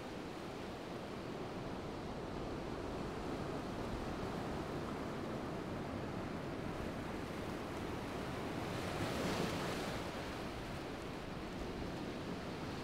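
Ocean surf washing onto a beach, with wind. The wash swells briefly louder about nine seconds in.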